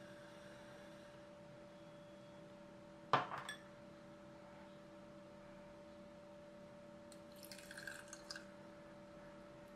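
A single sharp clink about three seconds in, then a brief soft trickle of water poured from a small glass bowl onto sugar in a stainless steel saucepan, over a faint steady hum.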